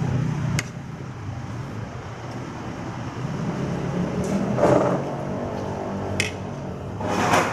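Eating sounds: a spoon clinks sharply on a plate twice, and two short, louder noises come about five and seven seconds in, over a steady low hum.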